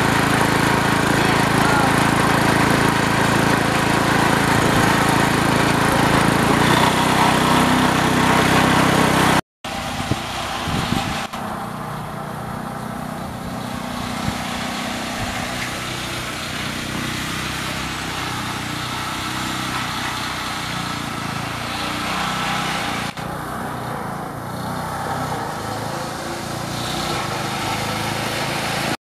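Small garden tractor engine running while being driven, loud and close for the first several seconds, its pitch dropping about seven seconds in; after a cut it is heard more quietly as the tractor drives along the street.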